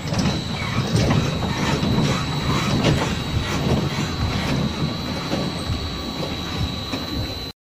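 Children's roller coaster cars rumbling and clattering along their steel track, with a steady high whine. The sound cuts off abruptly near the end.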